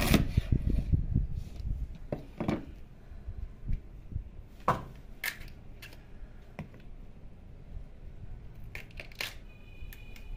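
A kitchen knife cutting through crisp fresh fennel bulbs on a plastic cutting board: a quick run of crunching at first, then single crisp snaps and cuts every second or so.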